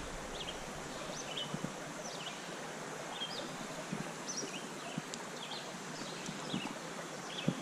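Small birds chirping in short, repeated calls over the steady hiss of a flowing creek, with a few faint knocks.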